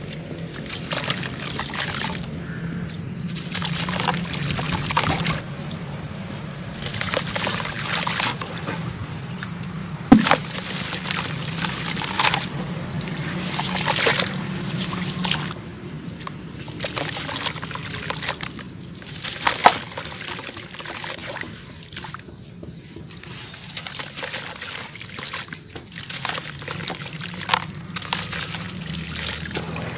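Dry sand-cement chunks crumbling in water: a continuous fizzing crackle with irregular sharp cracks and some sloshing, and two louder snaps, about ten and about twenty seconds in.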